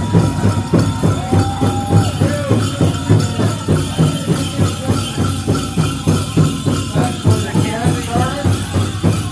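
Powwow drum group singing a chicken dance contest song: several voices singing over a steady, fast beat on the big drum, with a jingling of the dancers' bells.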